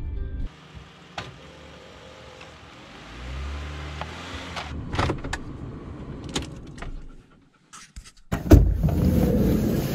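Ram ProMaster van out on a muddy dirt track, its front tyre on recovery traction boards: a low engine hum with several sharp clicks. After a short near-silent gap, a loud thump and then steady, louder engine and road noise from inside the cab, from about eight and a half seconds in.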